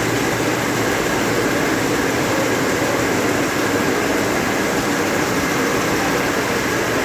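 High-speed needle looms running: a loud, steady, dense mechanical din with a faint steady whine high above it.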